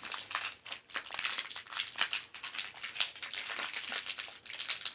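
Candy wrapper crinkling in quick, irregular crackles as it is handled and opened.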